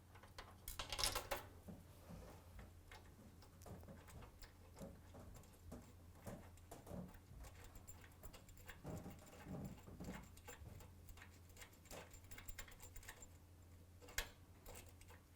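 Faint, scattered clicks and taps of small metal parts being handled, with a brief clatter about a second in, as engine bolts and spacers are set in place. A faint steady low hum runs underneath.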